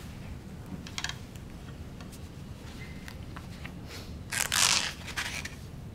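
A low steady room hum with a few faint clicks. About four and a half seconds in comes a brief rustling scrape of cloth and metal as a medal is pinned onto a suit jacket.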